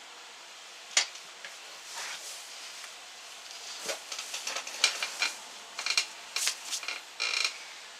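Irregular sharp clicks, taps and short scraping rustles of small hard objects being handled, over a steady faint hiss.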